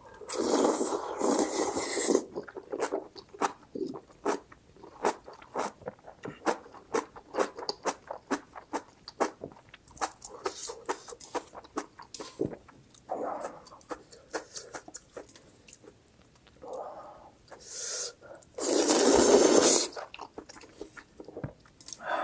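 Close-miked eating of spicy instant noodles and kimchi: a loud noodle slurp near the start and another near the end, with crunchy chewing between them, several clicks a second.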